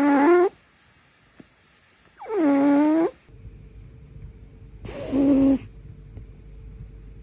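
A cat snoring like a person: three loud, pitched snores about two and a half seconds apart. A faint steady hum comes in about halfway through.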